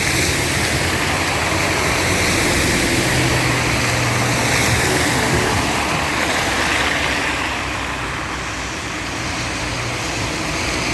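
Steady rain on a street with road traffic. A vehicle's engine hums low for about the first half, then drops back under the rain.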